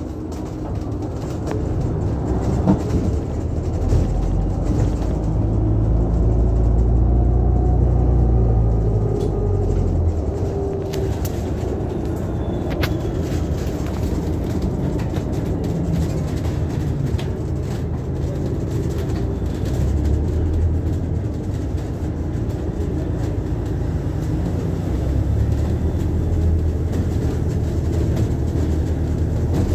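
Cabin noise inside an Alexander Dennis hybrid double-decker bus on the move: a steady low rumble and hum from the drivetrain and road that swells as it picks up speed, twice. There is a faint rising whine as it accelerates and light rattles from the interior fittings.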